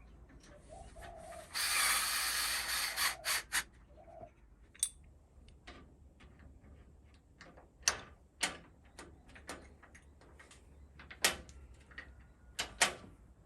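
Metal lock parts and hand tools being handled on a security door lock: a ratcheting rattle about one and a half seconds in that lasts over a second, then scattered sharp clicks and knocks.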